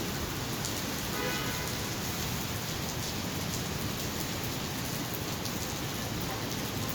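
Heavy rain falling steadily on the street, a constant even hiss. A brief high pitched tone sounds about a second in.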